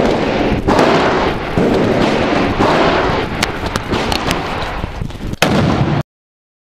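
Airsoft gunfire and pyrotechnic blasts: loud, dense noise broken by many sharp cracks, with a louder crack about five and a half seconds in, cutting off abruptly just after.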